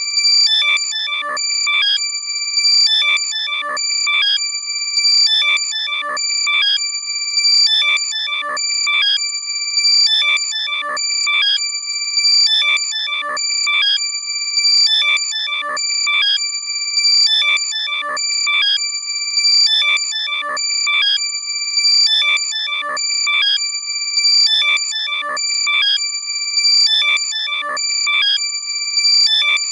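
Loud, compressed electronic alert sound: high-pitched chirping beeps over steady tones, in a pattern that repeats about every two seconds. It is made to be played through a lost AirPod so that the earbud can be heard and found.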